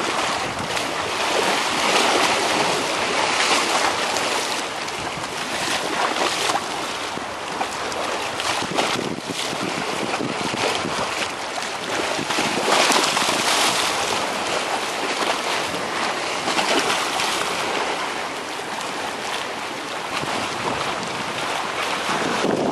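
Sea waves washing and splashing against a concrete pier's edge: a steady rushing noise that swells and eases every couple of seconds.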